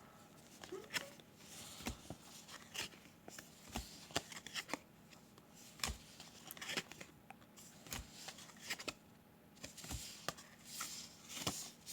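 Faint, irregular clicks and soft swishes of baseball trading cards being flipped through and handled one after another.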